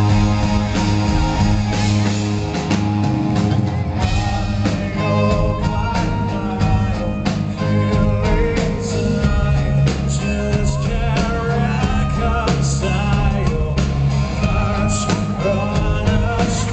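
Live rock band playing in a concert hall, heard from the crowd: electric guitar and bass over drums that come in fuller about four seconds in, with a voice singing over it in the second half.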